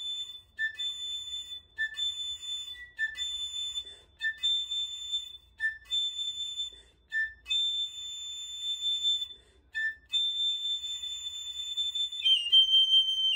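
Piccolo playing repeated octave leaps on A, a short lower A each time jumping up to a longer held high A, about nine times with brief breaks between. Near the end the line steps down to lower notes.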